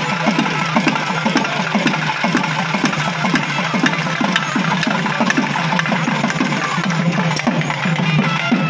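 Tamil temple festival drums playing a fast, steady rhythm of about five strokes a second, each low stroke sliding down in pitch, over a steady low hum and scattered sharp higher clicks.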